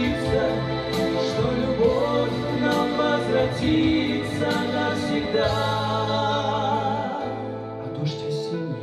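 Male and female voices singing a slow pop ballad duet into microphones over sustained instrumental accompaniment.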